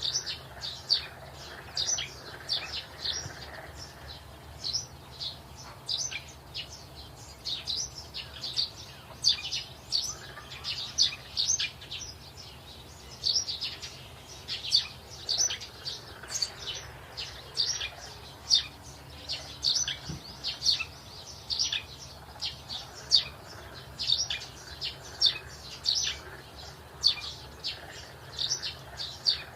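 Small birds chirping continuously, with quick high chirps several times a second.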